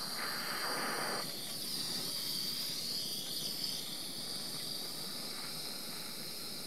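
Small plumber's propane torch burning with a steady hiss as it heats brass parts for silver soldering; the rush is a little stronger for about the first second.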